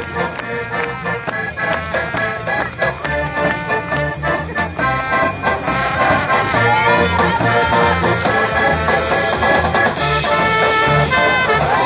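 Live circus band of drum kit, accordion, double bass and brass playing a tune with a steady bass beat, louder from about halfway.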